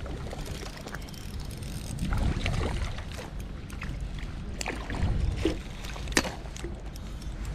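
Wind buffeting the microphone in a steady low rumble, with a few sharp clicks in the second half.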